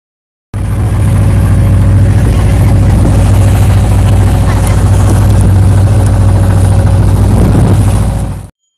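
A wooden boat's engine running steadily and loud, a constant low hum under a rush of water and wind noise; it cuts off abruptly near the end.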